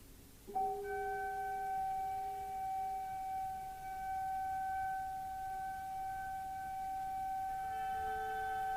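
Orchestral music: a single high, pure note enters about half a second in and is held steadily, with a lower note under it that fades after a couple of seconds. Further notes join near the end.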